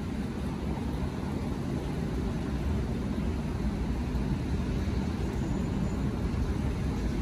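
Steady low rumble and hiss of a 1973 St. Louis Car Company R44 train approaching along wet track.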